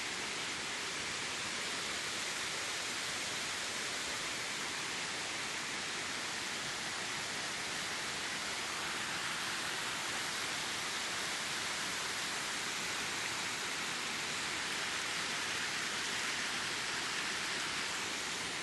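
Waterfall pouring, a steady, even rush of falling water with no breaks.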